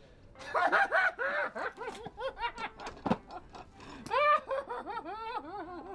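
Laughter: a run of short 'ha' sounds, each rising and falling in pitch, loudest about four seconds in.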